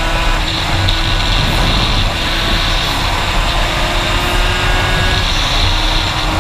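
Aprilia RS 50's two-stroke AM6 engine, fitted with an 86 cc aluminium top end, running at a steady cruising speed, with wind on the microphone. A steady hum rides along with it, which the rider puts down to a slightly slack drive chain.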